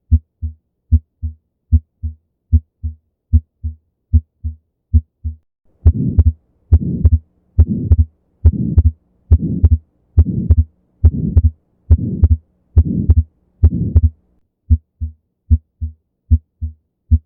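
Heart sounds heard through a stethoscope, a steady lub-dub at roughly 70 beats a minute. From about six seconds in, the beats grow louder and a rushing murmur fills each heartbeat: the murmur of an atrial septal defect. Near the end, clean lub-dub beats without the murmur return.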